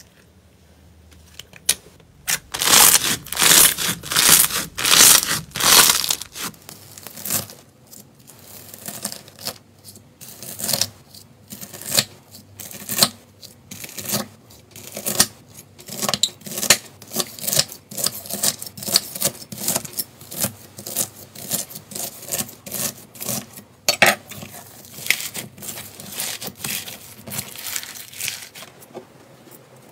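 Slime being stretched, squeezed and pressed by hand: a dense run of crackles, pops and tearing sounds, loudest in the first few seconds. Gold foil laid on slime crinkles as it is handled around the middle, and crunchy slime crackles near the end.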